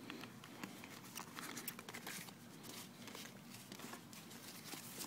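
Faint rustling and crinkling of paper wrapping and a cardboard knife box as a folding knife is drawn out and unwrapped, with scattered small ticks of handling.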